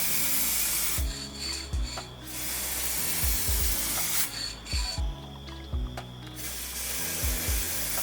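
Spray paint hissing out in three long bursts with short pauses, as a keyboard case is painted. Background music with a steady low beat plays underneath.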